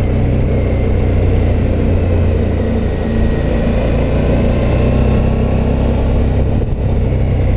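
A Suzuki V-Strom motorcycle's V-twin engine runs steadily at moderate revs while riding through tight corners at about 40 km/h.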